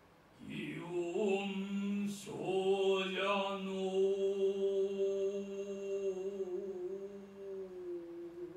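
Male voice chanting in biwa-gatari style, holding one long, slightly wavering note, with a single sharp biwa plectrum stroke about two seconds in.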